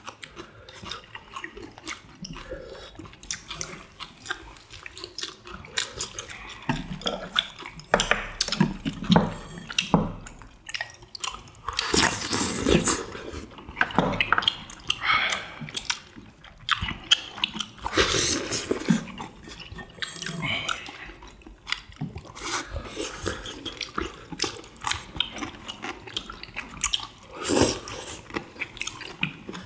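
People eating tteokbokki and fried chicken with chopsticks: close chewing and mouth noises with scattered small clicks, and a few louder slurps.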